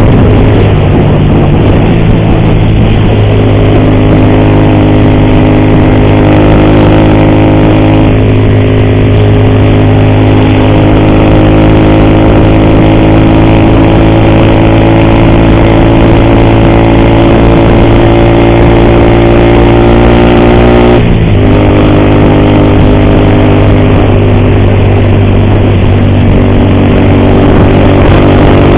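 Motorcycle engine running under way, its pitch creeping slowly up and then dropping suddenly about two-thirds of the way through before holding steady. The rider blames an ugly noise from this engine on the timing chain.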